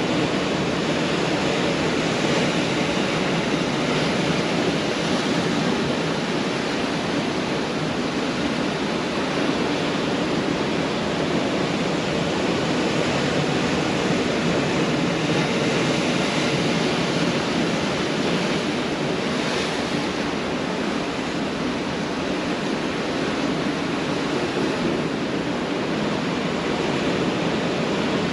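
Pacific Ocean surf on a beach: a continuous, even wash of waves with only slight swells in loudness and no single breaker standing out.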